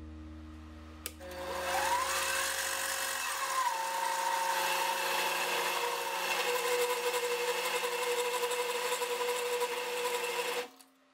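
Mini lathe turning a 1045 steel shaft under a cut: the spindle drive comes up with a rising whine about a second in, then runs steadily with a harsh cutting hiss. Near the end it cuts off suddenly as the lathe's internal electronics sense an overload and trip the motor.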